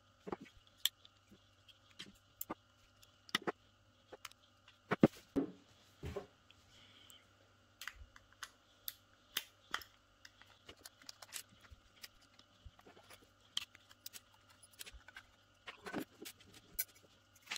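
Irregular light clicks, taps and knocks of hard plastic hair clippers being handled, with a louder cluster about five seconds in.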